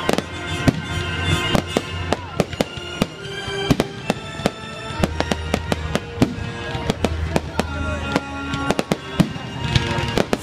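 Fireworks display: aerial shells bursting in many sharp, irregularly spaced bangs and crackles, with dance-pop music playing underneath.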